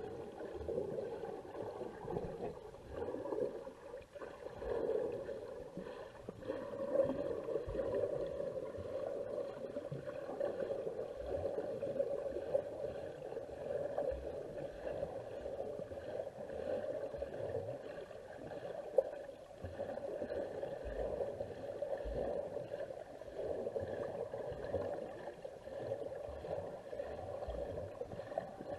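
Muffled underwater sound picked up by a submerged camera: a steady, wavering wash of water noise with occasional soft low thumps.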